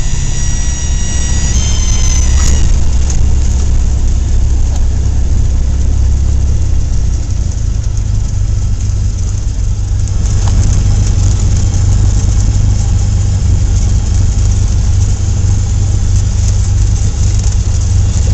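Cessna 172 stall warning horn sounding as a high, reedy tone for about two and a half seconds at the start, rising slightly before cutting off, over the steady low rumble of the engine and airflow in the cabin. The horn is the sign of the wing near the stall as a gust hits just before touchdown.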